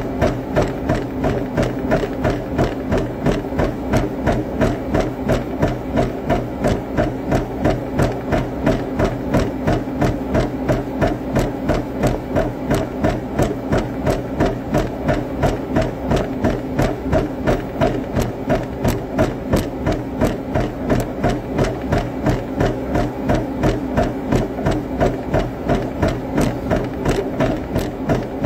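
Running on a treadmill: even footfalls on the deck at about three a second, over the steady hum of the motor and belt.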